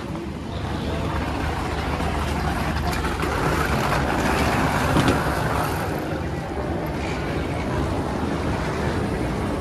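A steady low mechanical rumble under an even outdoor hiss, swelling a little about halfway through.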